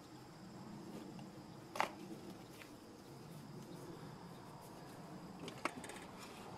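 Quiet background with a faint steady high tone, broken by two short sharp clicks, one about two seconds in and another near the end.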